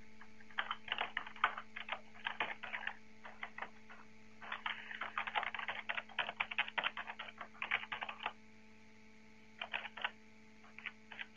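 Typing on a computer keyboard: quick runs of keystrokes in several bursts with short pauses between, the longest run in the middle. A steady low hum runs underneath.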